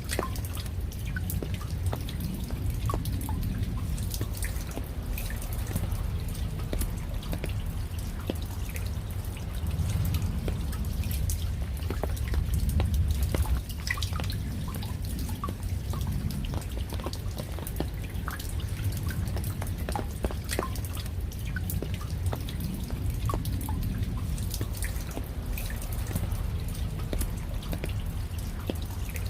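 Rain falling, with many separate raindrops dripping and ticking at an uneven pace over a steady low rumble. The rumble swells for a few seconds around the middle.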